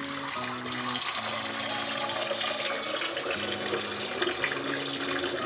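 Two streams of tap water running steadily at full flow, one from a Pureal under-sink filter's stainless drinking faucet and one from the kitchen tap, splashing into containers in a stainless-steel sink.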